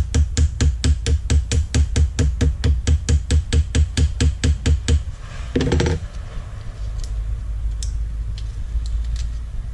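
Small hammer tapping quickly and lightly on gasket paper laid over a metal carburettor flange, about five taps a second, cutting out a new gasket against the flange edge; the tapping stops about five seconds in.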